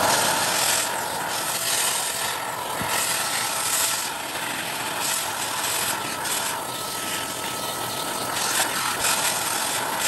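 Girnoor corded stick vacuum, used as a handheld with a crevice tool, running steadily as it sucks dust from a floor corner. It makes a steady rush of air with a faint high whine.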